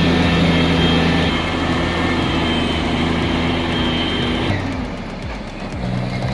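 Heavy truck's diesel engine running steadily under load while held in gear, its note changing about four and a half seconds in. The narrator reckons the clutch discs are taking a lot of heat from holding that gear.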